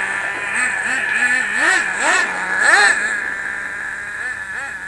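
Small nitro glow two-stroke engine (a Force .15) in a 1/10-scale RC sprint car, run rich for break-in, buzzing with short throttle blips that rise and fall in pitch. The blips are loudest about two to three seconds in, then the engine eases off toward the end.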